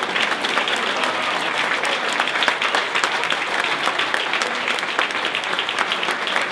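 A roomful of people applauding, steady dense clapping with no break.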